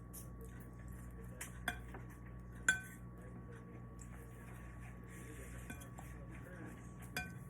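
Eating utensils clinking against dishes: several light, separate clinks, the loudest about two and a half seconds in with a brief ring, over a low steady room hum.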